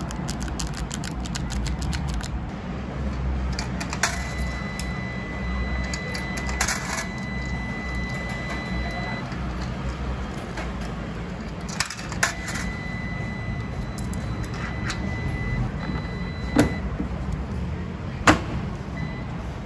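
Urban background noise: a steady low rumble with scattered clicks and knocks, and a long, steady high-pitched electronic beep that sounds twice, for about five seconds and then about three seconds.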